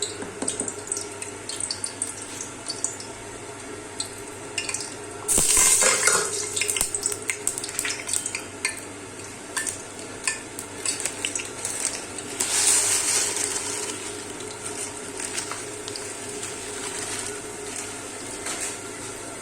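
A spoon stirring and clinking against a cooking pot while food fries in it. About five seconds in there is a short, loud burst of sizzling, and from about twelve seconds in a steady sizzle.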